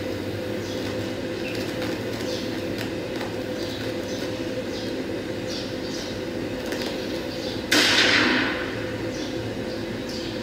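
Steady room hum with faint scattered ticks. About eight seconds in, a sudden loud burst of hissing noise that dies away within a second.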